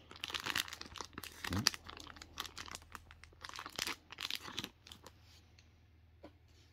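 Paper and plastic mail packaging being torn and crinkled open by hand, in irregular crackles that die down to a few faint clicks after about five seconds.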